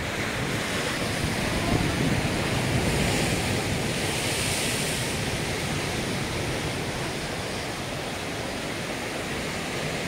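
Ocean surf breaking and washing against rocks in a continuous rush that swells louder for a few seconds, then eases.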